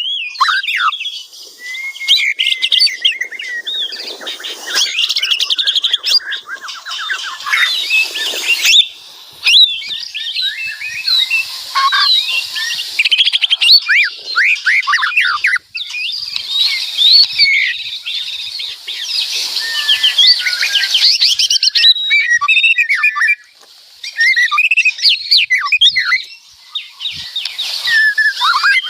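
White-rumped shama singing loudly and almost without pause: a dense run of fast, varied whistled phrases, sweeps and rapid trills, broken by a few brief pauses.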